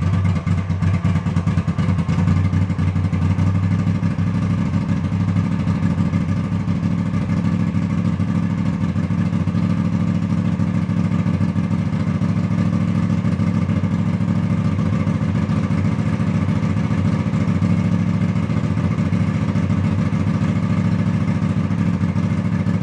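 Honda CX500's liquid-cooled V-twin engine running steadily at idle, with no revving.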